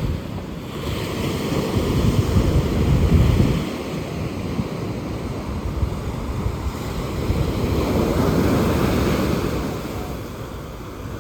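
Sea waves washing onto a beach, swelling and easing twice, with wind rumbling on the microphone.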